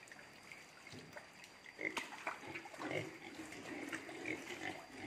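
A pen of young lean-breed pigs grunting softly at intervals, more often from about two seconds in.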